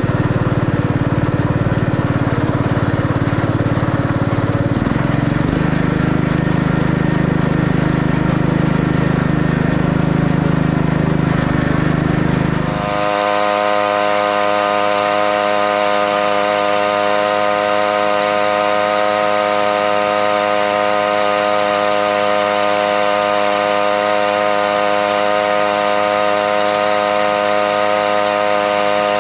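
An engine runs steadily for about 13 seconds, changing speed about five seconds in. It then cuts sharply to a steady, high, even machine whine made of many fixed tones.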